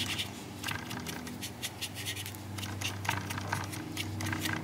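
Stiff paintbrush scrubbing dry weathering pigment powder onto the plastic fuel tank of an HO scale model locomotive: a run of quick, irregular scratchy strokes over a steady low hum.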